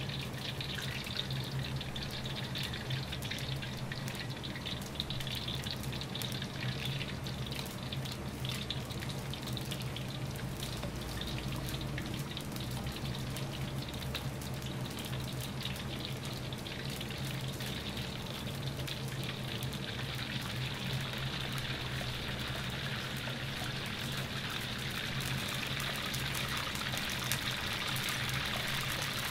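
Battered shrimp deep-frying in hot oil in a wok: a dense, steady sizzle and crackle of bubbling oil, growing a little louder near the end, over a low steady hum.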